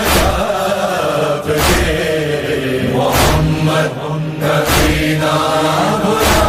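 Urdu noha (mourning lament): voices holding a long, slow chanted line over a heavy, regular beat that falls about every one and a half seconds.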